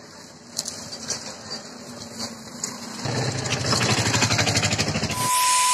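A small motor-vehicle engine starts running with a fast, even putter about three seconds in. Near the end, a loud hiss and a steady high beep cut in suddenly.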